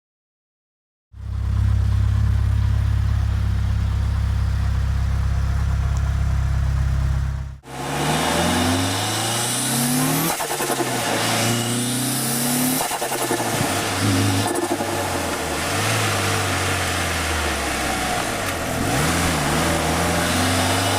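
Straight-piped 1998 Mitsubishi Lancer Evolution V's turbocharged four-cylinder engine. It holds a steady low note for several seconds. After a cut, it revs up repeatedly, the pitch rising and then dropping at each gear change as the car accelerates.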